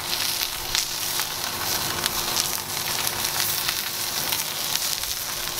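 Wagyu steak searing in a smoking-hot cast-iron skillet greased with its own rendered fat: a steady sizzle full of fine spitting crackles.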